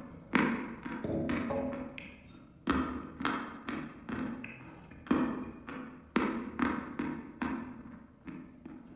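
A mouthful of chalk being chewed: sharp dry crunches about once a second, with softer grinding between them.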